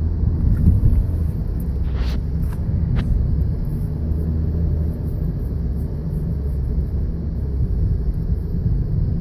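Steady low rumble of a car driving, road and engine noise heard inside the cabin. Two brief faint ticks about two and three seconds in.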